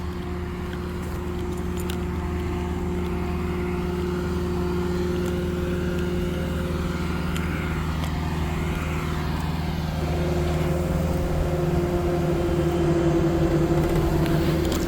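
Diesel engine of an ASV RT-110 compact track loader running steadily, its tone shifting slightly about ten seconds in.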